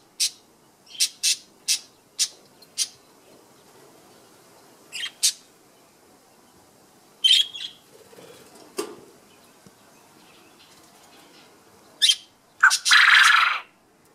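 Male Japanese quail calling: a quick run of short, sharp chirps, a few more scattered ones, then one loud, harsh call about a second long near the end.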